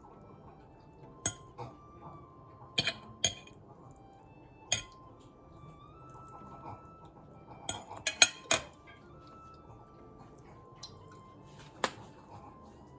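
Metal fork clinking against a ceramic plate as pieces of boiled pork belly are moved about. There are a few separate sharp clinks, then a quick run of clinks about two-thirds of the way through, and one more near the end. Faint background music plays underneath.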